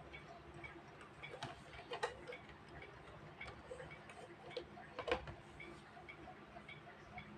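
Vintage mechanical alarm clock ticking steadily and faintly, with a few louder knocks, the loudest about five seconds in.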